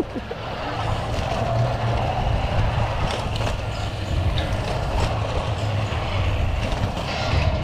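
Zip coaster trolley rolling along its overhead steel rail, a steady rumble mixed with wind rushing over the microphone as the ride moves downhill.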